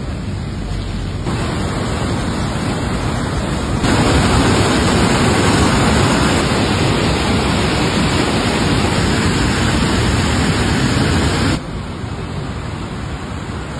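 Steady rushing of a swollen, muddy river in flood. It grows louder about four seconds in and drops away sharply near the end, leaving a quieter, even outdoor noise.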